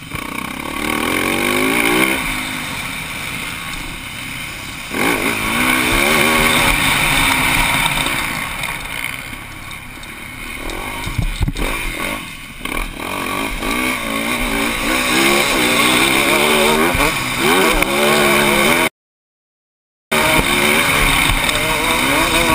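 Motocross bike's engine heard from the rider's helmet, revving up hard through the gears and dropping back again and again as the rider shifts and rolls off for turns. The sound drops out completely for about a second near the end.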